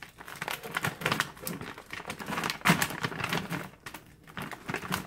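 Plastic resealable zipper of a frozen-shrimp bag being pulled apart by hand, a quick run of small clicks and plastic crinkling in spurts; the seal is tight.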